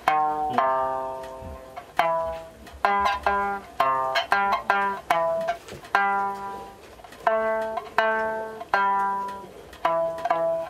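Sanshin, the Okinawan three-stringed lute, plucked note by note in a simple slow melody: about twenty clear notes that each ring and fade, played in short phrases with brief pauses between them.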